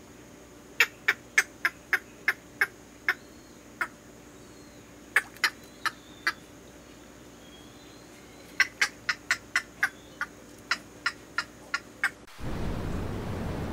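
A bird giving short, sharp clicking calls in quick bursts of several notes, about three a second, with quiet gaps between the bursts. Near the end the sound cuts to a steady rushing noise like wind.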